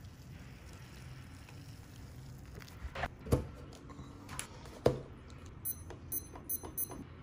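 A few sharp knocks and taps from handling things on a counter, then a quick run of short, high electronic beeps, about four a second.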